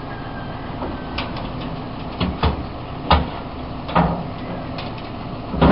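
Farm loader and tractor engines running steadily while a loader bucket tips a load of manure into a steel trailer. Several thuds and clunks sound as the muck drops in and the bucket jolts.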